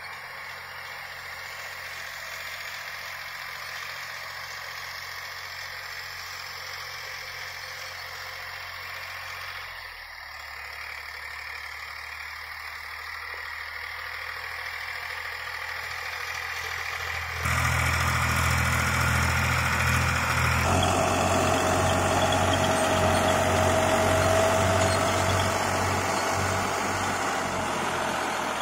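Preet 4549 tractor's diesel engine running steadily under load while it pulls a rotavator through the soil. The sound changes abruptly twice and is clearly louder over the last third.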